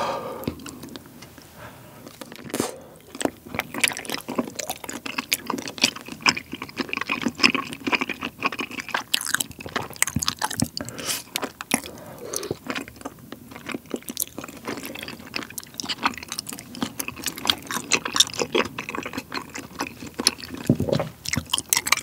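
Close-miked wet slurping and chewing of thick, chewy bunmoja glass noodles coated in spicy tteokbokki sauce, with many small irregular sticky mouth clicks and smacks.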